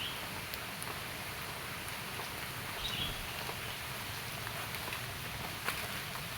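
Wind blowing through banana plants and trees: a steady rustling hiss.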